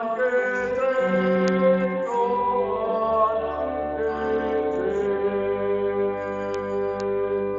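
Closing bars of a church hymn: sustained chords over a low bass line, changing several times, then a final chord held from about two-thirds of the way in.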